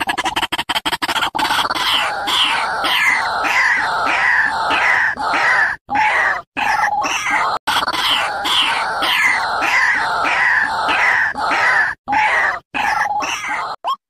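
White-breasted waterhen calling, as in a ruak-ruak lure recording. A fast run of clicking notes gives way after about a second and a half to a long series of loud, harsh repeated notes, about three a second, broken by a few short pauses.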